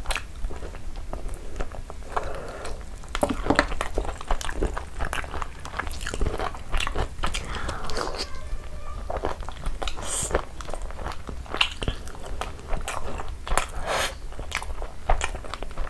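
A person biting and chewing a curried chicken leg piece with rice, close to the microphone: a run of irregular short mouth clicks and chewing noises.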